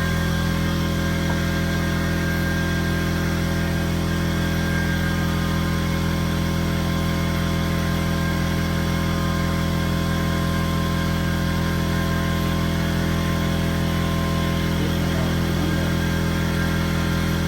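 A steady machine hum made of several constant low tones, holding an even level without change.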